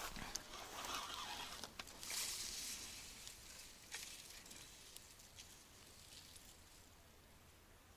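Faint rustling from clothing and grass close to the microphone as the angler moves and handles his rod, with a few light ticks. After about three seconds it dies down to a quiet, steady outdoor background.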